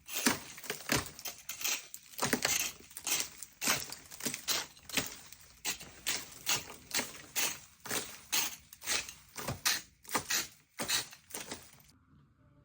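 A quick, uneven run of sharp knocks and crunches, about two or three a second, that stops abruptly near the end.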